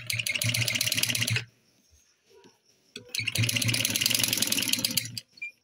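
Sewing machine stitching a seam in two runs of about a second and a half to two seconds each, with a short pause between: a fast, even rattle over a low hum.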